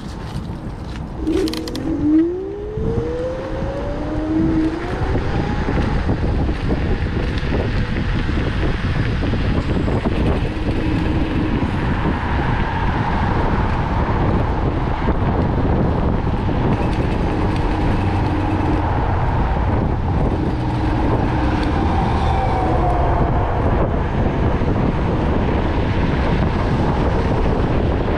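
Kaabo Mantis electric scooter pulling away and accelerating: a rising motor whine in the first few seconds, then a steady rush of wind on the microphone at riding speed.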